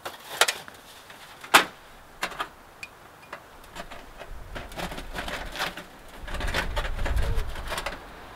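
Sharp clicks and knocks of a long metal tube being handled and fitted together, the loudest about one and a half seconds in. Over the second half, wind rumbles on the microphone, strongest near the end.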